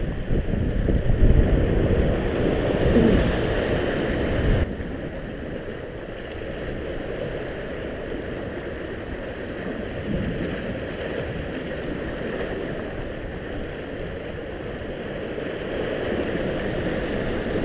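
Wind buffeting the microphone with sea surf washing over shore rocks; the rough wind rumble is loudest for the first four and a half seconds and gives way at an abrupt cut to a softer, steady wash of waves and wind.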